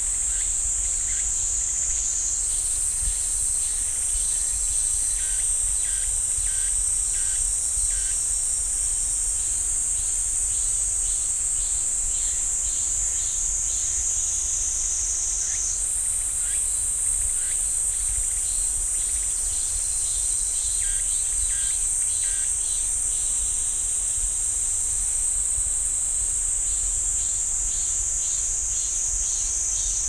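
A chorus of cicadas droning without a break at a high pitch. The drone shifts abruptly in pitch about two seconds in and again halfway through. Fainter short, repeated calls come through now and then.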